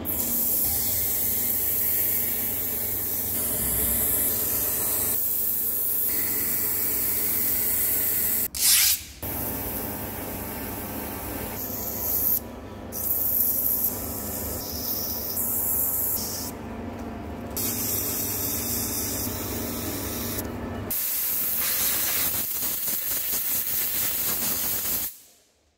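Abrasive tape held against a high-tensile steel hydraulic piston spinning in a lathe: a steady rubbing hiss as the machined surface is sanded and polished. It jumps abruptly several times and cuts off near the end.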